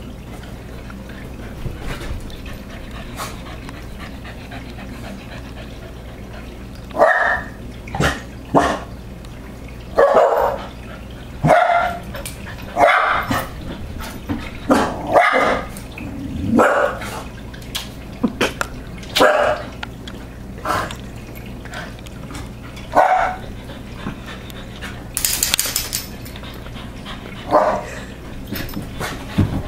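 Small terrier barking in short bursts, one or two barks at a time with pauses of a second or two, starting about a quarter of the way in, at fish in an aquarium. Under the barks runs a steady low hum.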